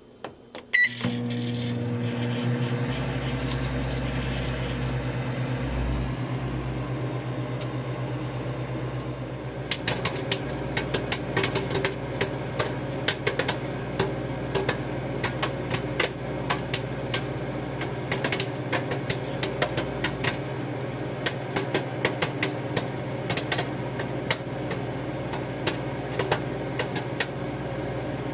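A microwave oven starts up about a second in and runs with a steady hum. From about ten seconds in, a bag of microwave popcorn begins popping inside it: sharp, irregular pops that keep coming at a steady pace.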